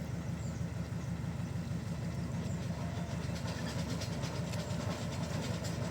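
Industrial band sawmill machinery running: a steady low drone with a fast, even rattle through it.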